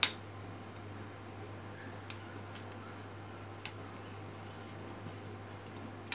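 Hands working a metal kitchen tongs while tying a small lead sinker on with nylon line. There is one sharp click at the start, then a few scattered light ticks, over a steady low hum.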